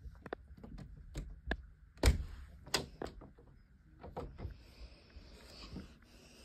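Handling noise from a handheld phone: a run of clicks and knocks, with two louder thumps about two and three seconds in.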